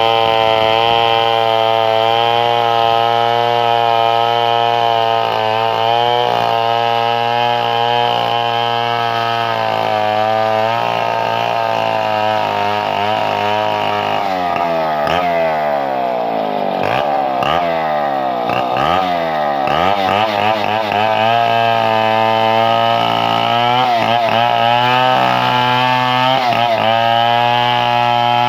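Two-stroke chainsaw running continuously at high revs while cutting timber into planks. Its pitch slides up and down for several seconds in the middle as the load on the chain changes.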